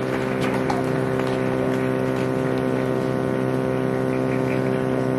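Steady electrical hum from a public-address system: one unchanging buzzing tone with many overtones, with a few faint clicks in the first second.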